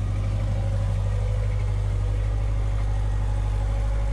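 Yacht's onboard generators running with a steady low hum.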